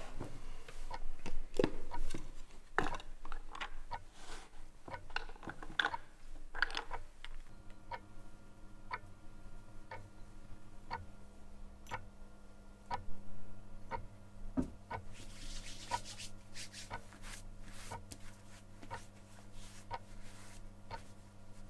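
Irregular knocks and rubbing for the first several seconds, then a clock ticking evenly, about three ticks every two seconds, over a steady low hum. A short hiss comes about two thirds of the way in.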